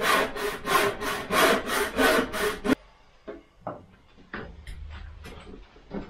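Hand wood saw cutting through plastic (PVC) pipe in quick, even strokes, about four a second, stopping suddenly about three seconds in. A few light knocks and taps follow.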